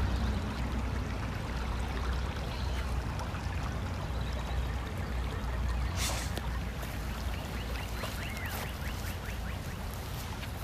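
Shallow creek water trickling over rocks, a steady rushing hiss under a steady low rumble, with one brief knock about six seconds in.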